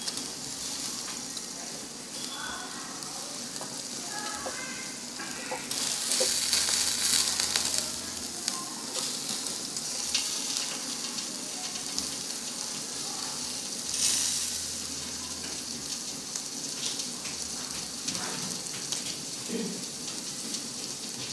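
Pork ribs sizzling on the rack of an electric grill, a steady hiss that swells louder twice, about six and fourteen seconds in.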